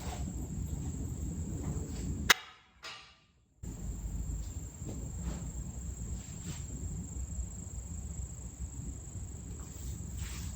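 Outdoor background with a steady high insect chirring over a low noisy rumble. A sharp click about two seconds in is followed by about a second of dead silence before the same background returns.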